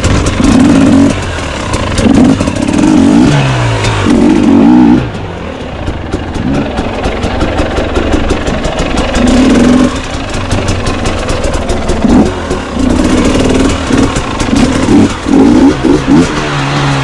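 Enduro dirt bike engine revving in repeated short bursts as the throttle is opened and shut, its pitch rising and falling with each blip.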